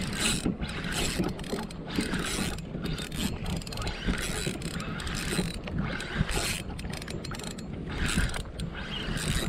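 Spinning reel cranked steadily, its gears whirring and clicking as line is wound in against a hooked fish.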